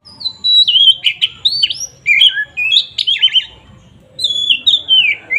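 Oriental magpie-robin singing loud, varied whistled phrases of sliding notes and quick trills, with a short pause about three and a half seconds in before the next phrase.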